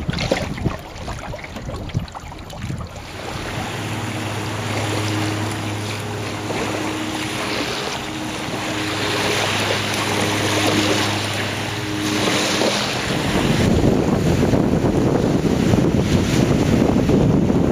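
Wind blowing over the microphone with small waves lapping at a sandy shore. A steady low hum runs under it through the middle and stops about thirteen seconds in, after which the wind rumble on the microphone grows heavier.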